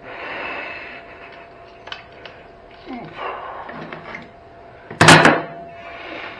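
Handling noises from parts and tools being moved about, with scattered small clicks and rustles and one loud knock or clatter about five seconds in.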